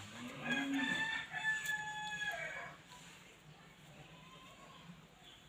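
A rooster crowing once: one long call of about two and a half seconds that rises, holds a steady note and falls away at the end.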